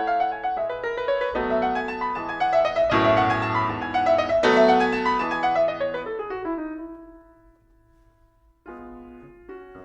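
Background piano music: a passage of notes and chords that builds, fades away to near silence about seven seconds in, then starts again more quietly near the end.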